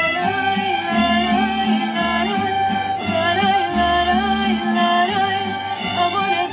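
Mariachi band playing, violins carrying a sustained melody over low bass notes.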